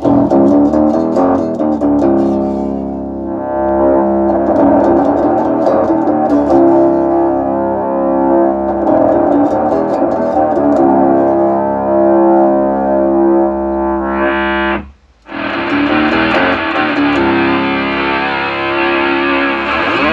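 Electro-Harmonix Bass MicroSynth pedal making synth tones from held, plucked notes, working again after its shorted SMD chips were replaced. The sound cuts out suddenly for a moment about fifteen seconds in, then comes back.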